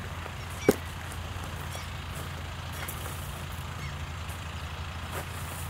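Throwing knife striking a wooden target with a sharp thud about two-thirds of a second in, and another strike at the very end. Under both is a steady low rumble of wind on the microphone.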